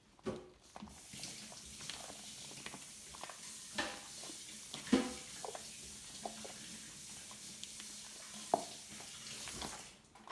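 Slime mixture being stirred, with scattered small clicks and squelches over a steady hiss that starts about a second in and stops near the end.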